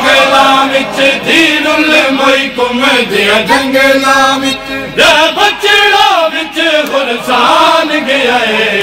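Men's voices chanting a Punjabi noha, a Shia mourning lament, in a loud, sustained, melodic chant.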